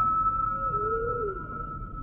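Humpback whale song: a long high held note, with a lower call about halfway through that wavers and slides down in pitch, over a low rumble.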